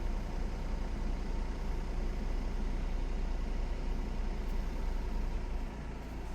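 Peugeot 5008's engine idling steadily, a low even hum.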